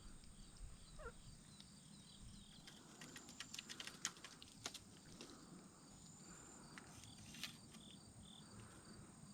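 Near silence outdoors: faint high insect or bird chirps, with a short cluster of soft clicks about three to five seconds in.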